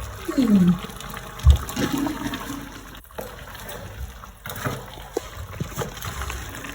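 Water splashing and trickling, with a few light knocks and a low thump about one and a half seconds in.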